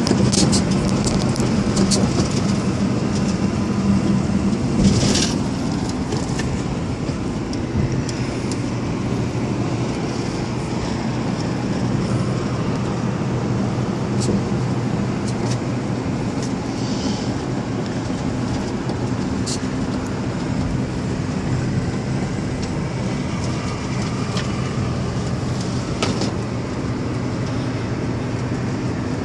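A semi truck's diesel engine running with a steady low hum, heard inside the sleeper cab, with scattered short clicks.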